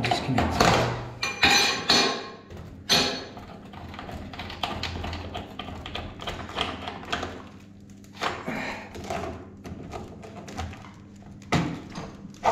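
Knocks, taps and clatter of work on an old over-sink electric water heater being disconnected: a metal spanner and the unit's plastic casing knocking about, loudest in the first few seconds and again near the end.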